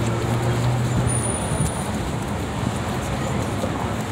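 A car engine running with a low steady hum that stops a little over a second in, over a steady wash of outdoor traffic-like noise.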